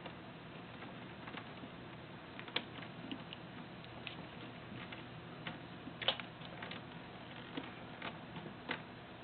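A kitten chewing and batting at a coiled telephone handset cord: irregular light clicks and taps of teeth and claws on the cord and the wooden shelf, the loudest about two and a half and six seconds in.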